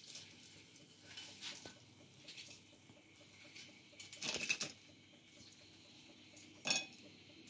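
A spatula scraping a non-stick frying pan as crisp fried dried red chillies are lifted out onto a glass plate: a few faint scrapes and light taps, the loudest about halfway through.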